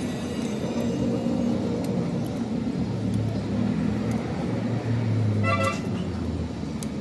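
Low rumble of a running vehicle engine, with a short car-horn toot about five and a half seconds in.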